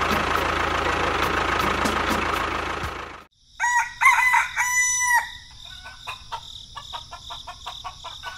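A tractor engine running, which cuts off suddenly about three seconds in; a rooster then crows, followed by faint ticking.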